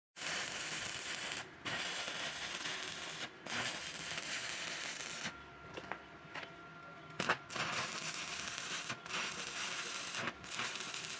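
Electric arc welding: a steady frying crackle of the arc laying a full weld bead, broken several times where the arc stops briefly and is struck again, with a few sharp pops.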